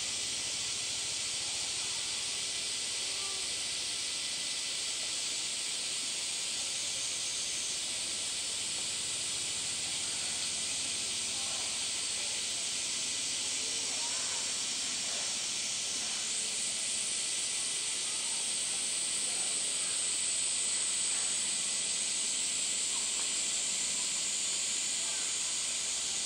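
Steady, high-pitched hiss of a summer cicada chorus, continuous and unchanging.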